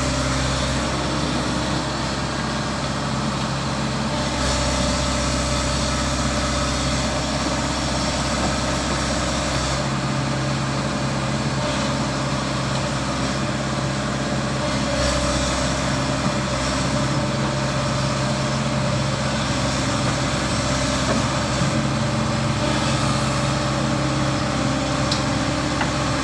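Volvo excavator's diesel engine running steadily, its low engine note changing a few times.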